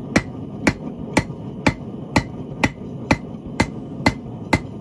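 Hand hammer striking a hot 5/16-inch steel rod ring on an anvil to flatten it, about two blows a second in a steady rhythm, each blow with a short metallic ring.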